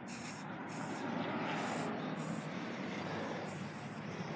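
Aerosol spray paint can of white paint hissing in about five short bursts as a smiley face is painted onto a wooden board, over a steady low rush.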